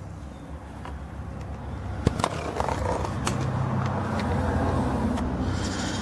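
Rumbling and scraping handling noise as a hand-held camera is moved about under a workbench stand. There are a few sharp clicks, and a low hum grows louder through the middle.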